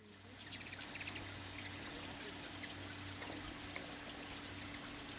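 Ruby-throated hummingbirds giving a quick run of high, sharp chirps within the first second, over a steady rushing hiss like running water.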